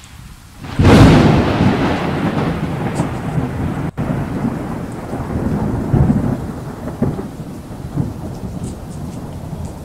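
Thunderstorm sound effect: a sudden thunderclap about a second in, then a long rolling rumble that slowly fades under steady rain.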